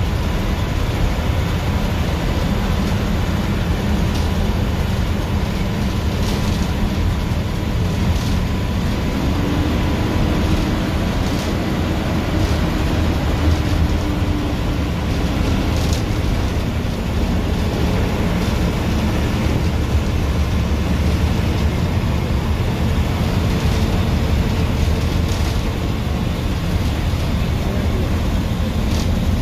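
Bus engine and road noise heard from inside the cab of a bus travelling on a highway: a steady rumble with occasional knocks and rattles.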